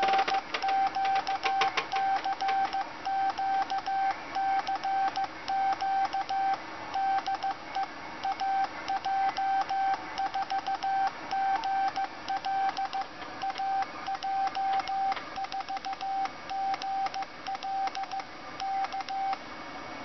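Morse code sent automatically by an Arduino Nano relay keyer through an amateur radio transceiver: a steady mid-pitched CW tone keyed on and off in quick dits and dahs, with a click at each keying. The sending stops near the end.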